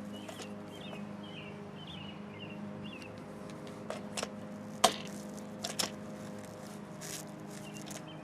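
A few sharp clicks and taps of something being handled, the loudest about five seconds in, over a steady low hum and small birds chirping.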